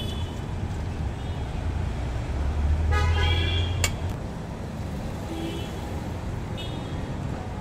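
Road traffic passing with a steady low rumble that swells about three seconds in, when a vehicle horn toots briefly. A sharp click comes just after.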